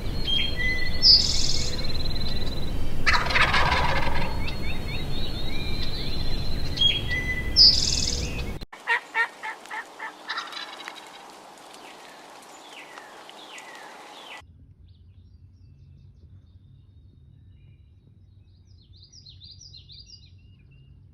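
Wild turkey gobbling once, about three seconds in, over a heavy low rumble of wind on the microphone, with short high bird chirps around it. After a sudden cut past the eight-second mark the sound drops much quieter, with scattered faint bird chirps.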